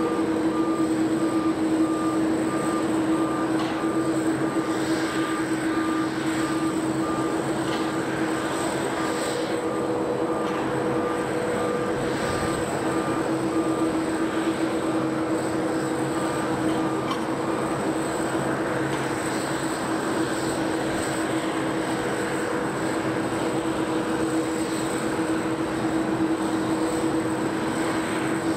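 Steady airport apron noise around a parked Boeing 747-8F: a continuous machinery hum with a high whine from ground equipment and the aircraft. A faint beep repeats evenly through the first part, like a ground vehicle's warning alarm, and stops a little past halfway.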